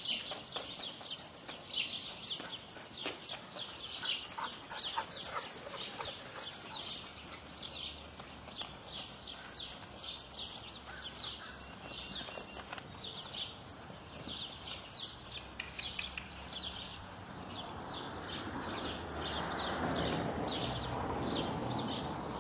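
Small birds chirping, short high chirps repeating about two to three times a second. A rush of noise swells in over the last few seconds.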